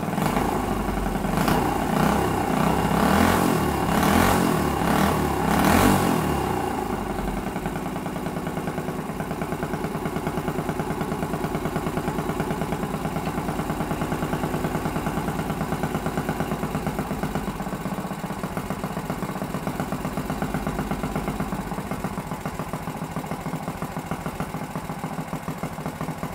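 Modified Honda GX160 single-cylinder engine, built with a Dyno Cam, ported head, Mikuni carburetor and a header-and-muffler kit, running on a test stand. Its throttle is blipped up about four times in the first six seconds, then it settles into a steady idle.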